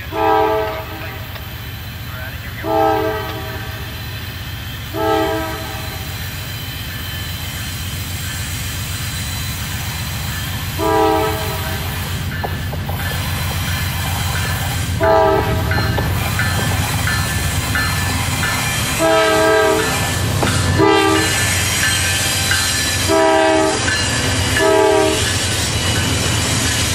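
A Norfolk Southern freight locomotive's multi-chime air horn sounds nine blasts, mostly short with a few longer ones, spaced a few seconds apart. Under them the rumble of the lead locomotives' diesel engines and the wheel noise grow steadily louder as the train draws near and passes.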